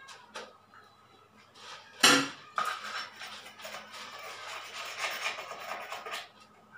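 A sharp knock on the aquarium glass about two seconds in, then several seconds of scraping and clinking as the aquarium's glass bottom seam is worked by hand.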